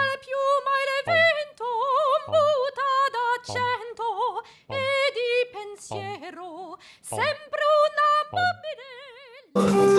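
A high, operatic-sounding sung voice with a wide, fast vibrato, in short phrases broken by brief gaps, each phrase starting with a low pulse. Near the end it cuts abruptly to guitar music.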